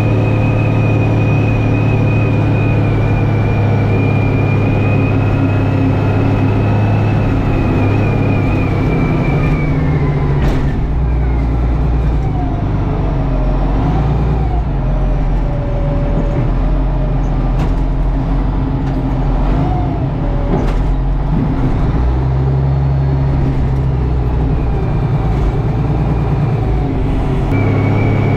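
Tractor engine running steadily while plowing compacted snow and ice, with a high whine over it. About ten seconds in the whine fades and the engine note changes, with a few sharp clunks; the whine returns near the end.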